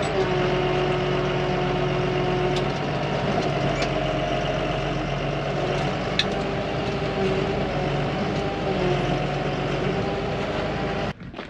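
Case IH 5240 Maxxum tractor's diesel engine running steadily, heard from inside the cab while the front loader works. The sound stops abruptly near the end.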